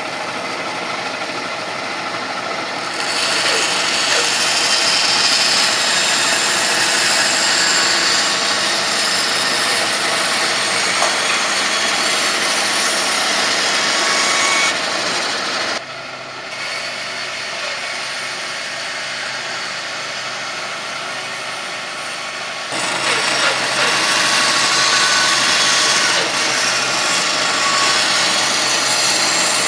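CORMAK HBS350N woodworking band saw running with a steady hiss and rattle. It gets louder for two long stretches, about 3 s in and again about three-quarters through, as the blade cuts through wood.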